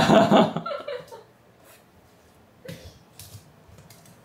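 A cat's drawn-out, wavering meow that ends about a second in, followed by a few faint taps.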